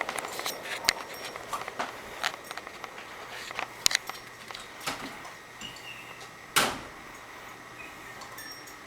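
Casablanca Zephyr ceiling fan with its Emerson K63 motor coasting down with the power cut, a faint steady whir under scattered light clicks and knocks. A sharp knock comes about six and a half seconds in.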